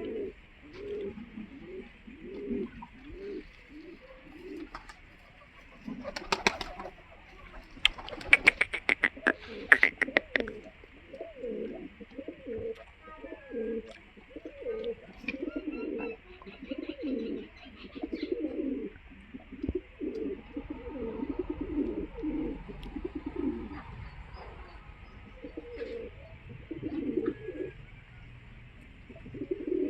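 Pigeons cooing over and over, low throaty calls. From about six seconds in, a loud run of rapid, sharp claps lasting about four seconds.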